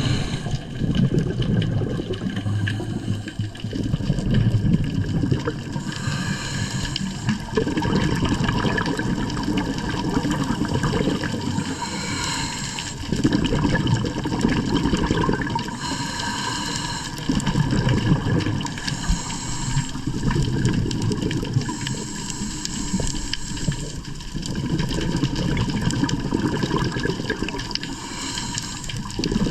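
Seawater washing and sloshing in surges every few seconds, over a steady hum of several thin high tones.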